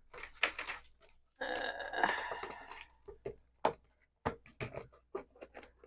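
Scissors cutting through a plastic packaging tray: a run of sharp snips and plastic clicks, with a longer rasping crunch of plastic about a second and a half in.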